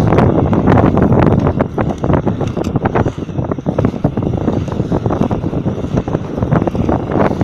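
Wind buffeting the microphone of a camera moving at skating speed, over the rolling rumble of inline skate wheels on an asphalt path. Frequent small clicks and knocks run through it.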